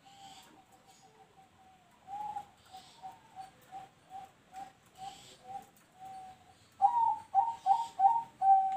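Zebra dove (perkutut) cooing its song, of the style its keepers call noklak nekung. A soft run of short, evenly spaced coo notes about two a second leads into a louder burst of quick notes near the end, finishing on a longer held coo.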